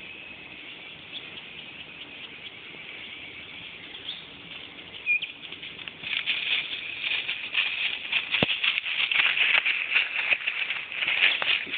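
Footsteps crunching and rustling through dry leaf litter, starting about six seconds in and then continuing loud and uneven. Before that there is only a faint steady hiss, with one short chirp about five seconds in.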